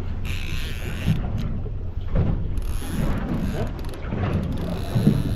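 Conventional multiplier fishing reel ratcheting in three short spells of about a second each, working line under the heavy load of a big halibut. A steady low rumble of wind and boat runs underneath.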